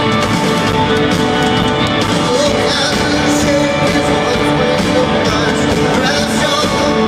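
A rock band playing live at full volume, with a singer over guitars and drums, heard from the crowd in a large arena.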